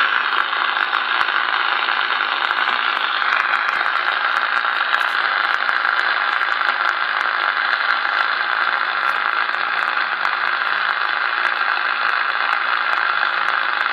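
Superstar 6900N CB radio receiving on upper sideband around 27.575 MHz: a steady hiss of band static from its speaker with no readable reply. The distant station has faded out as propagation dropped.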